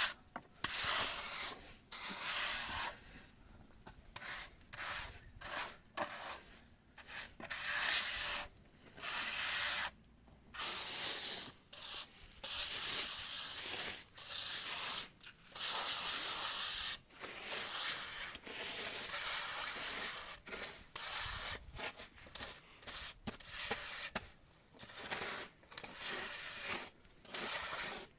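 Irregular bursts of rubbing and scraping noise, each from a fraction of a second to about a second long, with short gaps between them.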